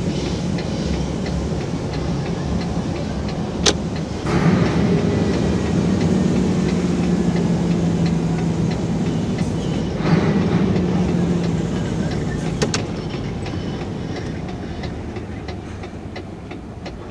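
Mercedes-Benz Actros 1844's V6 diesel engine pulling the truck along, heard from inside the cab. The engine note swells about four seconds in, holds steady, then eases off and grows quieter over the last few seconds. Two sharp clicks come at about four and thirteen seconds in.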